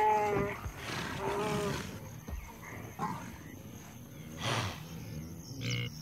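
Animal calls from cheetahs struggling with a wildebeest they are pulling down. Two drawn-out, wavering calls come in the first two seconds, then two short harsh rasps near the end.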